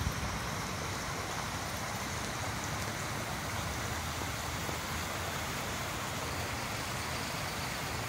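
Steady splashing of a small garden-pond fountain jet, an even hiss of falling water over a low rumble.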